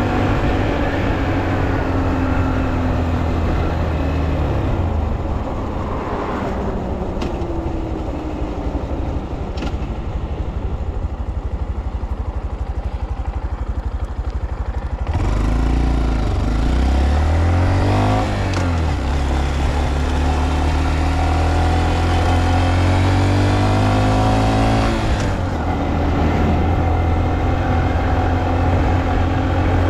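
Honda Monkey's 124 cc air-cooled single-cylinder engine, heard from the rider's seat while riding. It runs steadily, then the throttle eases off about five seconds in and the engine runs low and quieter for several seconds. About halfway through it accelerates hard again, its pitch rising, dipping briefly and rising again, with rushing wind, before settling into a steady cruise.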